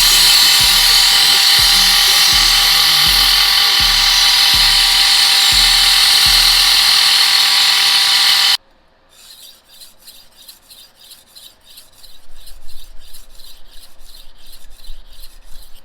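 A power grinder running on knife steel under a song with a steady beat, cutting off abruptly about eight seconds in. Then a series of quick, even scraping strokes on the blade, about three a second.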